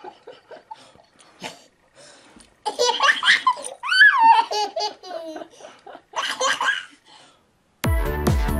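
A baby belly-laughing in loud bursts, with a high rising squeal about four seconds in and another burst of laughter a couple of seconds later. Electronic dance music starts suddenly near the end.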